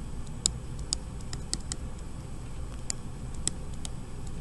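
Stylus tapping and clicking on a tablet surface while handwriting: about a dozen irregular light clicks, with a pause in the middle.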